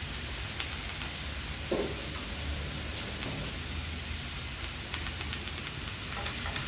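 Grated young papaya and fried aromatics sizzling in oil in a non-stick frying pan, a steady hiss with a few faint clicks. Near the end a wooden spatula begins stirring the pan.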